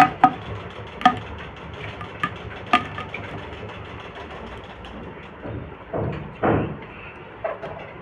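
Plastic pop tube toy being bent and squeezed by hand: a series of short, sharp pops as its corrugated pleats snap open or shut, most in the first three seconds, then a couple of longer, rougher sounds about six seconds in.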